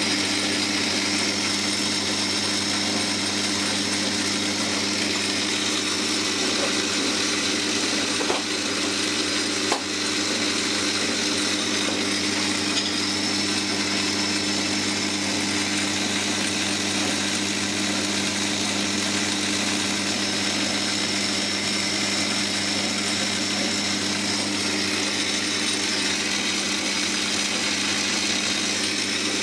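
Metal lathe running with its belt-driven spindle turning a 304 stainless steel shaft, giving a steady electric-motor hum and drive whir. Two short clicks come a little after 8 seconds and near 10 seconds.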